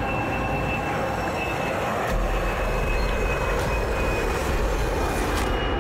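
Small private plane's engine droning steadily in flight.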